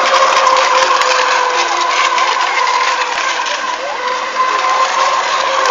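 Several FSR-E electric racing model boats running at speed, their motors making a steady whine at a few different pitches that drift slightly, over a continuous hiss.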